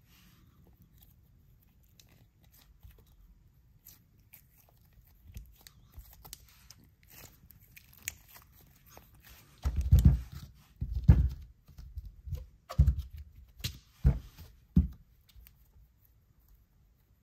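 A soft, stretchy rubber figure being stretched and squeezed in the hands. At first there are faint rubbery creaks and small clicks; from about the middle come about six dull, loud squishes, roughly a second apart, as it is kneaded.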